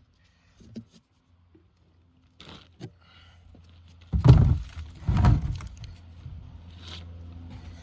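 Two heavy thuds about a second apart over a low steady hum, after a few light clicks.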